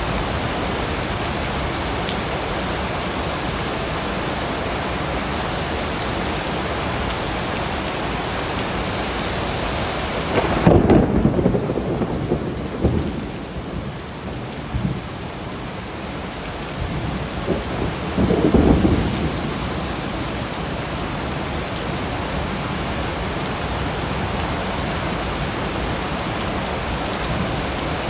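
Steady rain falling. About ten seconds in the hiss of the rain thins out and thunder rumbles twice, the second roll a few seconds after the first, before the full rain sound comes back.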